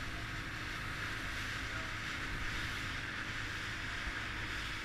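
Motorboat underway: a steady low engine hum under an even rush of water and wind.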